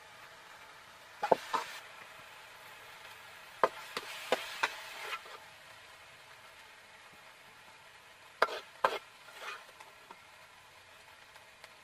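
A metal spoon knocking and scraping against a wok while fried minced fish is scooped out: two sharp clicks about a second in, four more around four seconds in, and two more about eight and a half seconds in, over a faint steady hiss.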